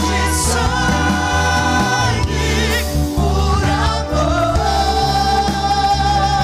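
Gospel worship song with singing voices holding long notes with vibrato over a steady band accompaniment.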